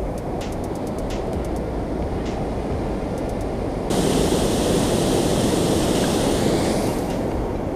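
Water rushing over a concrete dam spillway, a steady rushing noise that gets suddenly louder and brighter about four seconds in.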